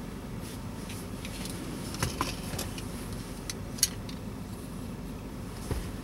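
A few light clicks and rustles as sunglasses are taken off and regular glasses put on, the sharpest a single tick near the four-second mark, over a steady low hum in the car's cabin.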